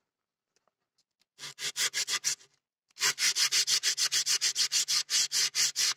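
Sandpaper, 180 grit, rubbed by hand along a steel knife blade cut from a plough disc, in quick back-and-forth strokes about eight a second. A short run starts about a second and a half in; after a brief pause a steady run begins about three seconds in.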